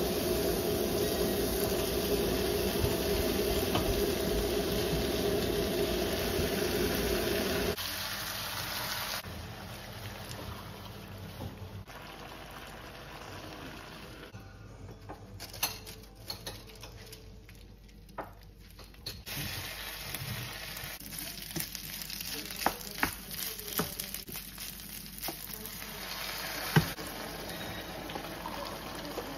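Cubed beef frying in a steel pan, a steady loud sizzle that drops away about eight seconds in; after that, quieter pan sounds with a few sharp clicks and knocks.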